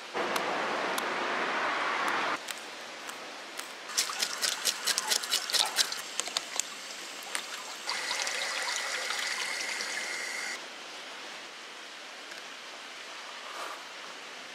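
Water running in two spells of about two to three seconds each, the second with a steady high whine in it, and a quick run of sharp clicks and scrapes between them while fish are being cleaned.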